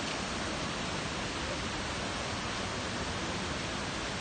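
Shallow stream rushing over rocks, a steady even rush of water.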